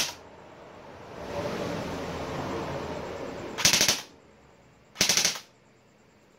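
Airsoft electric rifle (AEG) firing on full auto in short bursts: one burst ends just as the sound begins, then two more follow about 3.5 and 5 seconds in.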